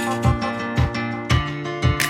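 Background music: guitar over a steady beat of about two beats a second.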